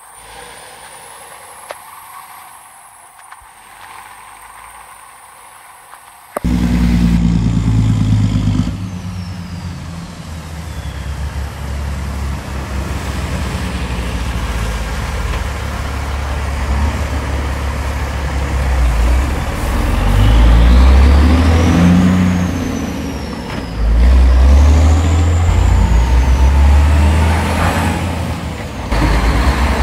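Heavy diesel trucks driving past one after another, their engines running low and loud and swelling as each one goes by. It is quieter for about the first six seconds, then much louder, with a high whistling tone that rises and falls twice near the middle.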